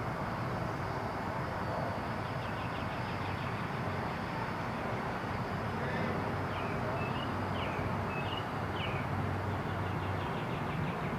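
Outdoor ambience: a steady low hum with even background noise, and several short bird chirps a little past the middle.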